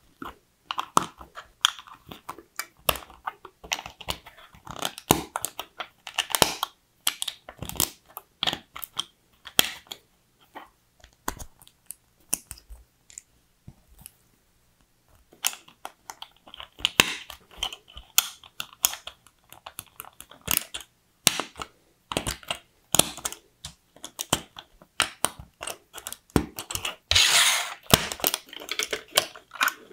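LEGO bricks, plates and tiles being handled and pressed together by hand: a quick, irregular run of small plastic clicks and snaps, with a short quiet pause about halfway through.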